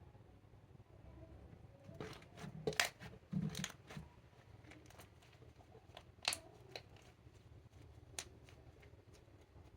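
Clear slime being worked by hand, giving sticky pops and crackles in a cluster about two to four seconds in, then a few single sharp clicks.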